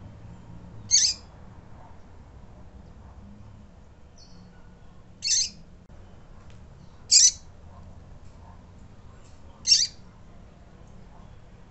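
Female double-collared seedeater (coleiro) peeping: four short, high call notes, spaced about two to four seconds apart, with a fainter brief note between the first two.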